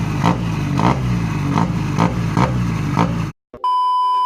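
Engine running through a loud aftermarket exhaust, a steady rumble with a pulse about every half second. It cuts off abruptly about three seconds in, and a steady high electronic beep follows near the end.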